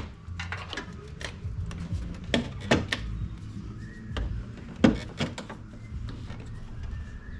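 Irregular plastic clicks and taps from a plastic trim tool prying out the push-in fasteners under a tail light. A few sharper snaps come in the middle.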